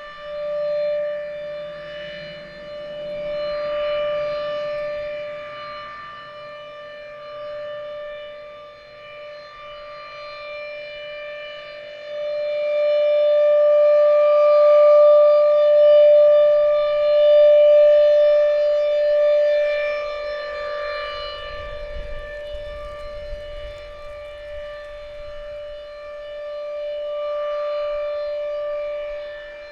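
Federal Signal RSH-10 outdoor warning siren sounding its steady alert tone: one held pitch that swells and fades every few seconds as the rotating siren sweeps past. Wind rumbles on the microphone around the middle.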